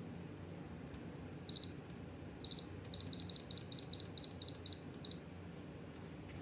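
High-pitched electronic beeps: a longer beep about a second and a half in, another a second later, then a quick run of about ten short beeps at about five a second. A low steady hum runs underneath.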